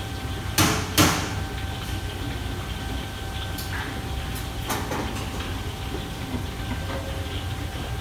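Steel wok set down on a commercial wok range: two loud metal clanks about half a second apart, then a few lighter knocks of metal on metal. Under them the steady low rumble of the kitchen's extractor hood and burners.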